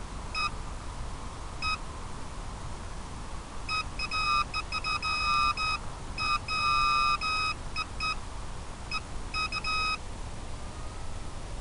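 Electronic beeper sounding at one fixed pitch: two short beeps, then from about four seconds in irregular runs of short and longer beeps that stop near the end, all over a steady hiss.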